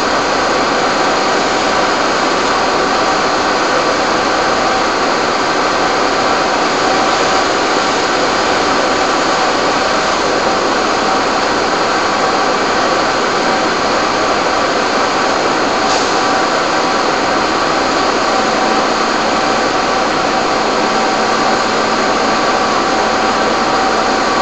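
Fire engines running steadily to drive their pumps for the hose streams: loud, even engine noise with a few constant whining tones over it.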